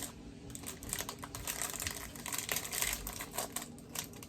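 Chocolate bar wrapper being handled and torn open: a run of quick crinkling crackles, densest in the middle.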